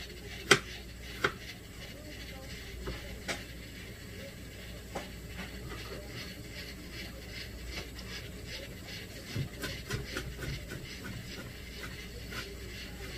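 A metal cooking utensil clacking against a pot on the stove, two sharp knocks near the start, then lighter taps and knocks while stirring.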